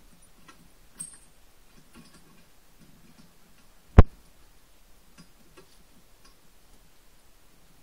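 Faint scattered clicks and scuffs from a dog jumping at and tugging a rope toy hung on a coil spring, with one sharp, loud knock about four seconds in as the dog lets go and the toy springs away.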